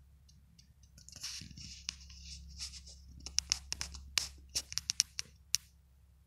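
Close-up scratching and rustling, turning into a quick run of sharp clicks and scrapes midway, over a low steady hum.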